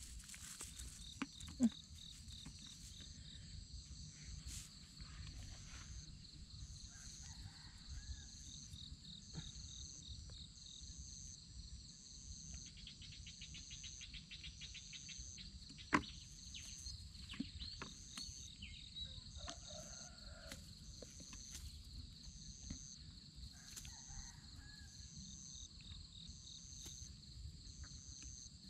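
Evening insect chorus: a steady high-pitched trilling, with a second high call pulsing about once a second. A few faint clicks and taps sound over it, from the cast net and catch being handled.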